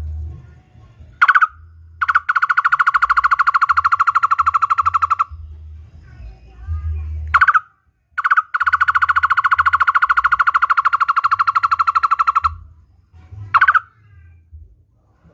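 A barbet (takur) calling: a single short note, then a fast, even rattle of repeated notes lasting about three to four seconds, given twice.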